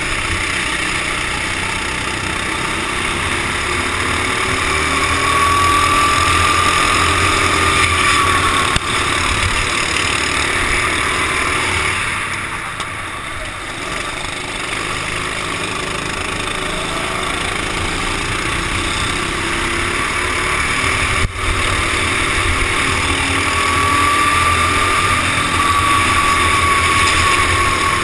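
Go-kart engine running hard in a race, heard from the driver's helmet. Its pitch climbs twice as it accelerates, and it eases off about halfway through as the kart slows for a tight corner. There are two short knocks, one about a third of the way in and one later on.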